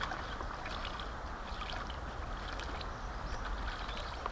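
River water lapping at a muddy bank: a steady wash with a few small wet clicks, over low wind rumble on the microphone.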